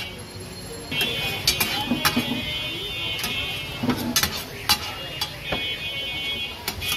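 Metal tongs and a flat metal spatula clanking and scraping on a flat iron griddle as stir-fried chow mein noodles are tossed, with sharp clinks every half second or so. A high, steady electronic tone sounds in the background twice, for a few seconds each time.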